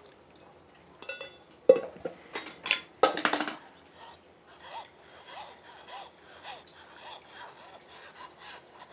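A spatula scraping back and forth against a fine metal mesh strainer, pushing wet corn masa through it, about two strokes a second. In the first few seconds a few louder knocks and a clink sound out.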